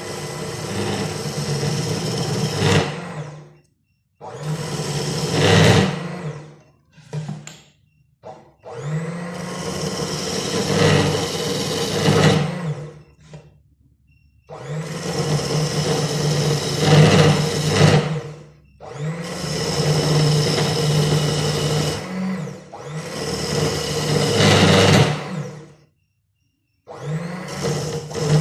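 Electric blender motor run in repeated pulses of a few seconds each, stopping briefly between runs.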